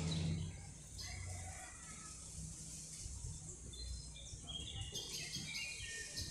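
Birds chirping and singing in the background, short high notes that grow busier in the second half. A steady low rumble runs underneath, louder briefly at the very start.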